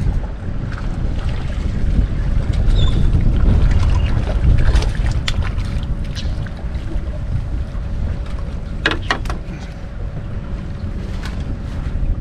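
Wind buffeting the microphone, a loud uneven low rumble, with a few sharp clicks about nine seconds in.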